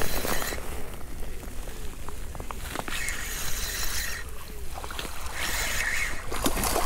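Spinning reel cranked in several short spells of whirring as a small pike is reeled in, with the fish splashing at the surface near the end.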